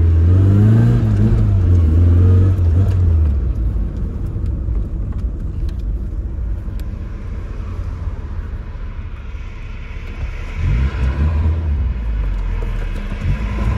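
Tofaş Doğan SLX engine revving hard for the first few seconds, dropping to a lower rumble, then revving up again about two-thirds of the way through, heard from inside the closed cabin.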